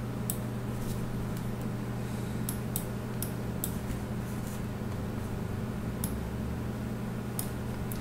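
A computer mouse clicking a dozen or so times at uneven intervals while sliders are adjusted, over a steady low electrical hum.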